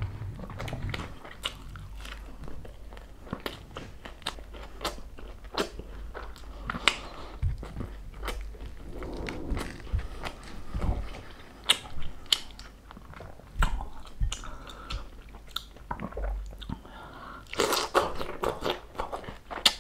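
Chewing and crunching of crispy pata, a deep-fried pork leg, as fingers pick crackling skin and meat off it: many short crisp crunches and clicks, with a denser, louder run of crunching near the end.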